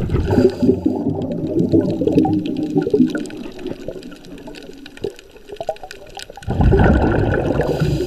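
Scuba regulator exhaust bubbles, a diver breathing out underwater, heard through an underwater camera housing: one long bubbling exhalation at the start, then a quieter pause, then a louder exhalation beginning about six and a half seconds in.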